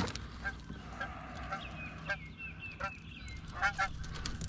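Birds calling: a series of short calls, with a run of quick high chirps in the middle.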